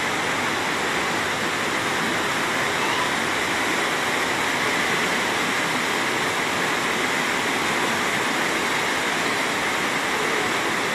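Fast-flowing floodwater rushing steadily, an even noise of moving water.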